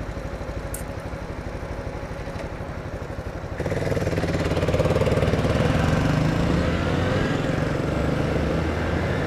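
Motorcycle engine idling with a steady, even beat, then pulling away about three and a half seconds in, louder and climbing in pitch as the bike accelerates through the gears.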